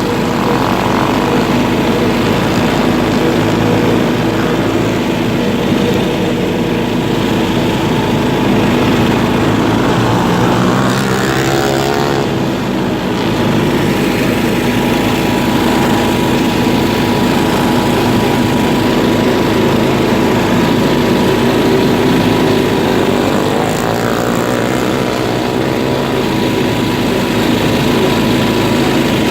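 An off-road vehicle's engine running steadily, with a brief change in engine pitch about eleven seconds in.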